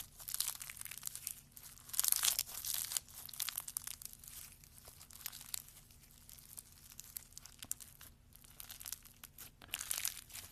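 Crunchy slime being squeezed and worked by hand close to the microphone: dense crackling of many small pops, in waves that are loudest about two seconds in and again near the end.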